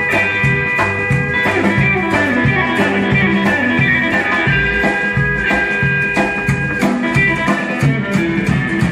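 Live rockabilly band jamming instrumentally: a Telecaster electric guitar plays held, bending lead notes over a drum kit with cymbals keeping a steady beat and an upright double bass walking underneath.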